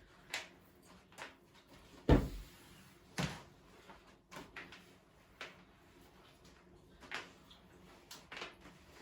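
A string of separate household knocks and clicks, with a heavy thump about two seconds in and a sharp knock about a second later.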